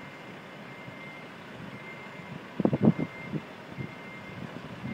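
A reversing alarm beeping, a single high tone about once a second, from the construction work at the building. A cluster of heavy bangs about halfway through is the loudest sound.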